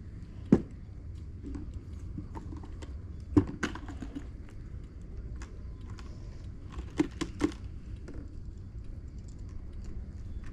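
A few short, sharp clicks and knocks over a steady low rumble: one about half a second in, a pair around three and a half seconds, and a quick cluster of three around seven seconds.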